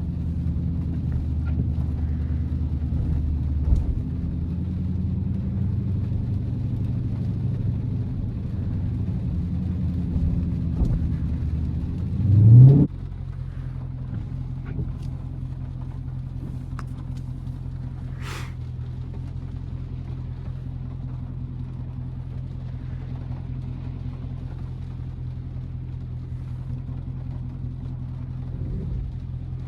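Dodge Charger Scat Pack's 392 (6.4-litre) HEMI V8 running under way, with a short rising rev about twelve seconds in that cuts off abruptly. After that it runs steadily and more quietly.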